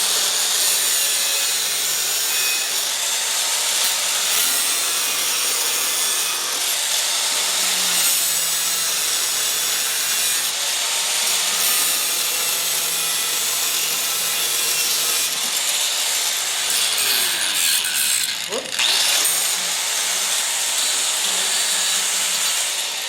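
Angle grinder running steadily as it grinds protruding screw tips flush on the back of a pine cabinet door. About three-quarters of the way through, the sound briefly drops off and its pitch sweeps before it carries on.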